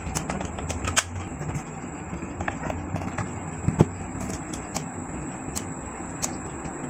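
Handling noise from a portable voice amplifier being picked up and turned over in the hands: scattered plastic clicks and knocks, the loudest about a second in and just under four seconds in, with button clicks on its panel. Underneath runs a steady faint hiss and a thin high whine.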